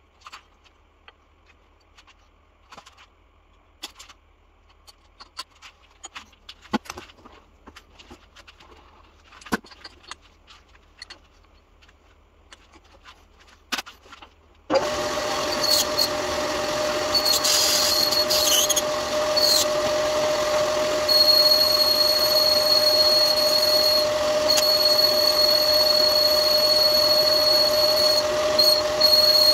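Light clicks and knocks of a cutting tool being handled and set at a small metal lathe. About halfway through, the lathe starts running, with a steady hum, and a boring tool cuts inside the bronze workpiece; a high steady squeal from the cut joins a few seconds later.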